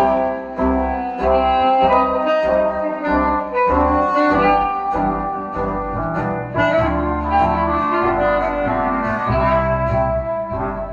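Old-time jazz music with saxophone or clarinet-type reeds playing the melody over a bass line.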